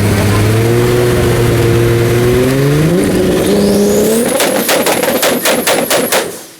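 Turbocharged VR6 engine of a tuned VW Golf 2 (about 850 PS) accelerating hard, its pitch climbing, dropping at a shift about three seconds in, and climbing again. It then lifts off into a rapid string of loud exhaust bangs, about five a second, with a high whistle over them, before the sound falls away.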